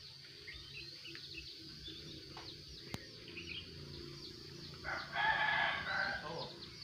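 A rooster crows once, about five seconds in, over a background of small high-pitched bird chirps. There is a single sharp click about three seconds in.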